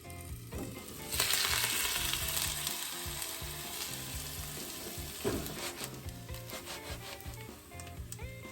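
Food hitting a hot oiled pan about a second in, setting off a loud sizzle that slowly dies down as it fries, with a clack of the utensil about halfway through.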